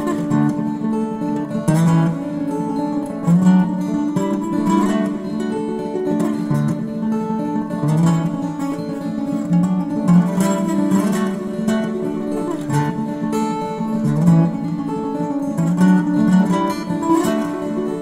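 Music: a passage of strummed guitar, playing steadily with repeated strokes.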